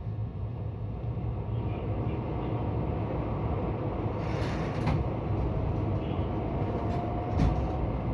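JR West 223 series 2000-subseries electric train heard from inside the cabin, running at reduced speed with a steady low rumble of wheels and running gear. A couple of sharp knocks come through, the louder one about seven and a half seconds in.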